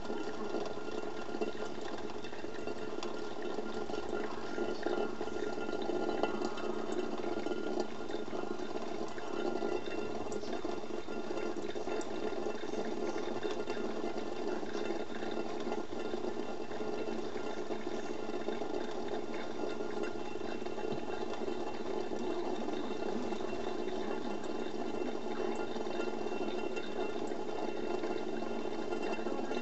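Thin stream of tap water running steadily onto the drain cover of a stainless steel sink, now and then broken by small splashes as a kitten paws at the stream.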